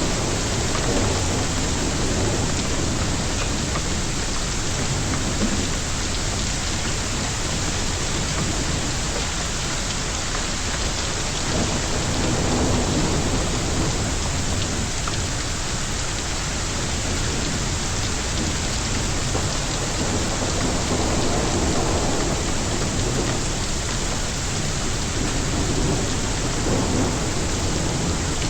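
A hailstorm with heavy rain and hail pelting down in a dense, steady hiss, and a low rumble underneath that swells a little now and then.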